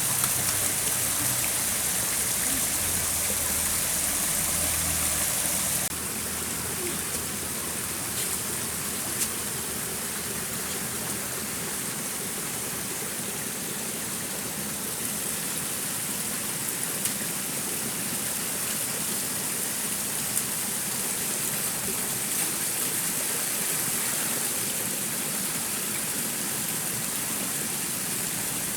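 Steady rush of flowing stream water. It drops slightly in level about six seconds in, with a few faint clicks.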